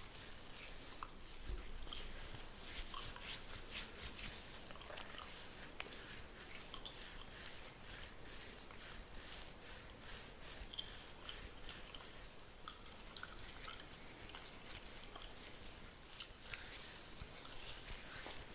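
Fingernails scratching through a beard close to the microphone: a continuous run of short, crisp, rasping strokes, quickest and densest in the middle.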